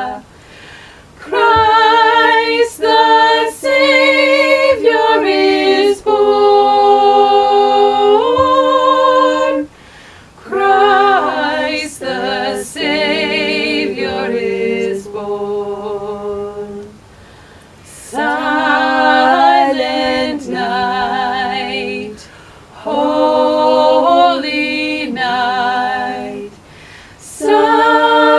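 Unaccompanied a cappella singing of a Christmas carol: long held phrases with vibrato, broken every few seconds by short pauses for breath.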